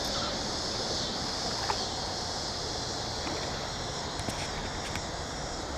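Steady outdoor background of flowing creek water and wind, with a constant high insect buzz and a few faint clicks.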